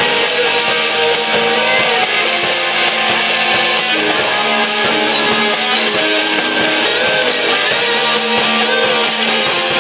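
A live rock band playing: electric guitars strumming over a drum kit, loud and steady throughout.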